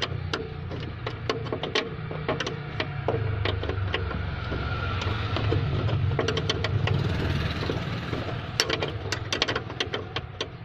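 Sharp metallic clicks and taps from a wrench working the nut on a rear shock absorber's top mount, coming thicker near the end, over a steady low engine-like hum.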